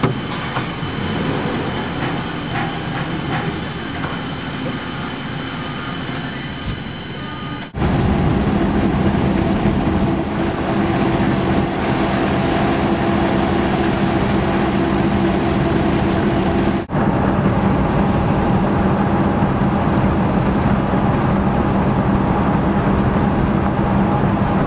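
Engine and road noise heard from inside the cab of an old vehicle. The first part is a quieter, mixed rumble. About eight seconds in it jumps to a louder, steady engine drone with road and wind noise at highway speed, broken by a brief dropout about halfway through.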